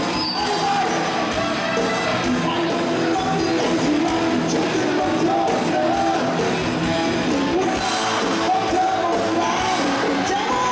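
Live rock band playing, with a male lead singer singing into a microphone.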